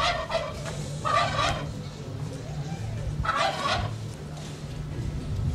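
A fowl, such as a turkey, calling three times in short bursts: once right at the start, again about a second in, and again about three and a half seconds in, over a steady low rumble.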